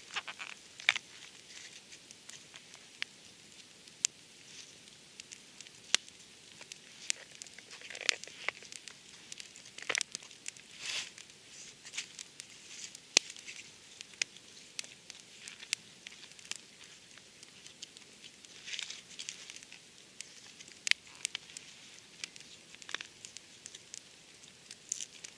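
Wood campfire crackling with many sharp pops, and dry fallen leaves rustling and crunching under hands in a few longer bursts, a third of the way in, around the middle and again later on.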